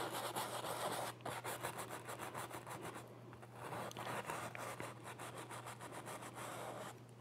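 A paintbrush scrubbing oil paint onto canvas in quick, short back-and-forth strokes: a faint, dry rubbing scratch repeated many times a second.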